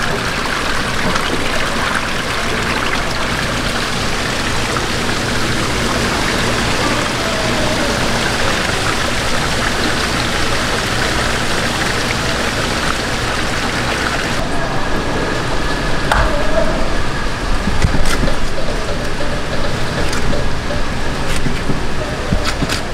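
Steady rush of running water in a live-fish tank. Partway through the sound thins, and a few sharp knocks come near the end.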